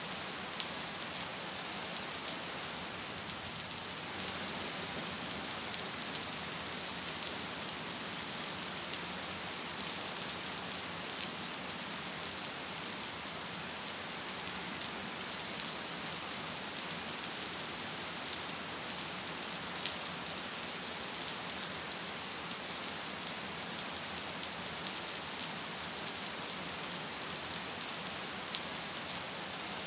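Gentle rain falling steadily: an even hiss with scattered light ticks of individual drops.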